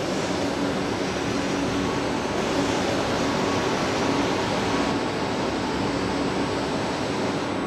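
Steady hum and hiss of hydraulic machinery running during a hydraulic mold clamp's unclamping operation; the hiss eases a little about five seconds in.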